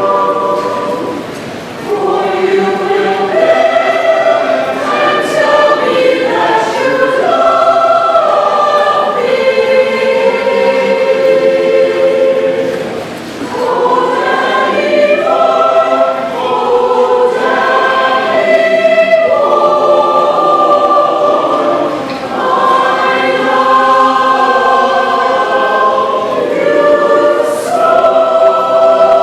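Choir singing, several voices holding notes together, with short breaks between phrases.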